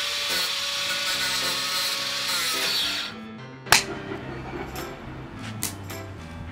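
Angle grinder cutting, a loud steady grinding hiss for about three seconds that then stops, over background music. About a second later comes one sharp click, and the music continues with a few faint ticks.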